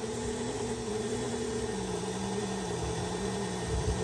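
KitchenAid stand mixer motor running steadily, turning the Spiralizer Plus attachment as it cuts a potato into spirals. The hum drops slightly in pitch a little under two seconds in.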